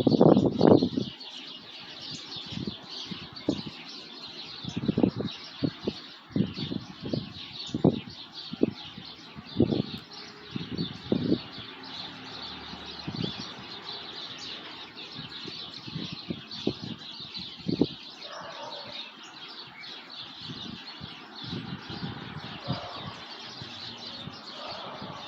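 A dense chorus of many small birds chirping and twittering continuously, with short low rumbling bursts now and then, loudest right at the start.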